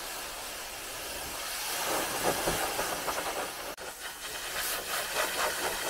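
Pressure-washer jet spraying water onto a foam-covered car body: a steady hiss with spattering, broken off abruptly about four seconds in and then carrying on.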